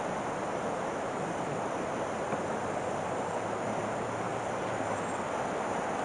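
River water rushing, a steady even rush with no breaks.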